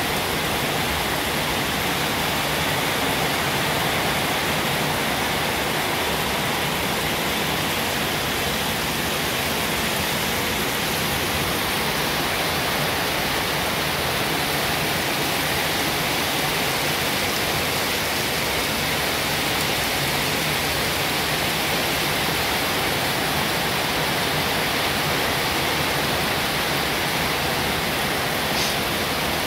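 Steady, even hiss of heavy rain, with one faint tick near the end.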